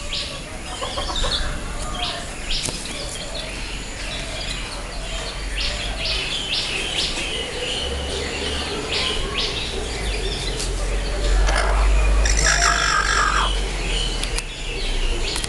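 Cochin bantam chickens making short, high chirping calls again and again, with one longer call about twelve seconds in. A low rumble of the camera rubbing against the bird runs underneath and is strongest around that call.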